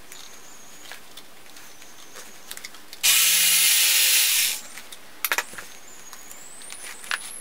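Electric carving knife switched on in one short burst: its motor and reciprocating blade buzz loudly for about a second and a half, starting suddenly about three seconds in and winding down in pitch as it is switched off. A few light knocks follow as the foam sheet is handled.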